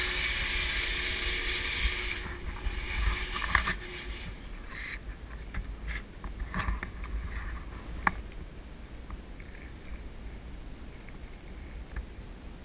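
Steady rushing hiss of flood-restoration air movers drying the carpet, which drops away about two seconds in. Scattered knocks and clicks follow over a low rumble, the sharpest about eight seconds in.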